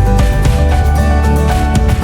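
Background music: held notes over a heavy bass, with a steady beat.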